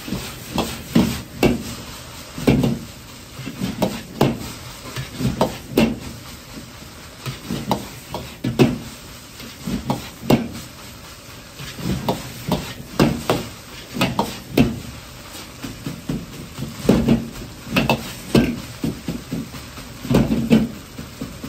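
Metal ladle striking and scraping a wok as fried rice is tossed and stir-fried over a high gas flame: a quick, irregular run of clanks, one or two a second, over a steady hiss of the burner and the frying rice.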